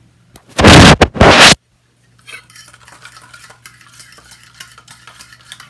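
A loud rushing noise in two parts, about a second long, near the start; then a fork stirring dressing in a small stainless steel bowl, with light scattered clinks and scrapes of metal on metal.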